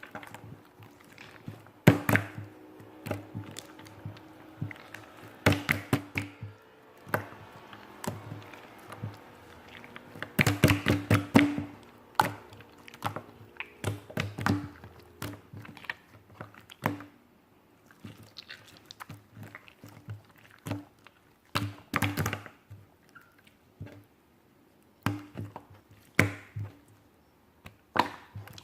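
Irregular knocks and taps of hard objects being handled, some in quick clusters, over a faint steady hum.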